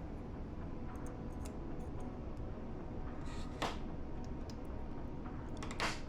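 Two light, sharp clicks of small hand tools against hard drive parts during reassembly, one about halfway through and a louder one near the end, over a steady low hum.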